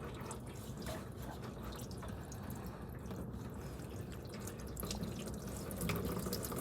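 Engine coolant draining from the radiator petcock of a 1963 Mercury Monterey, dripping and trickling.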